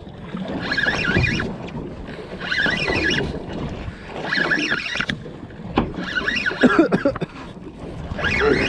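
Spinning reel being cranked in short bursts, about one every one and a half to two seconds, as an angler pumps and winds a hooked yellowtail kingfish up to the boat, with a few sharp clicks near the middle. Wind and water hiss underneath.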